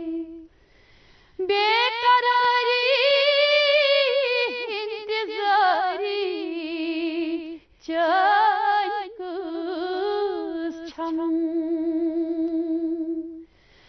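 A woman's solo voice singing a Kashmiri naat without accompaniment. The line is long and melismatic, with wavering ornaments, short breaths about a second in and near eight seconds, and a long held note near the end.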